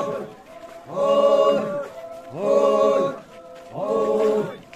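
A large group of men chanting in unison while walking, a short call repeated about every second and a half. Each call swells in with a rising pitch and is held briefly before the next.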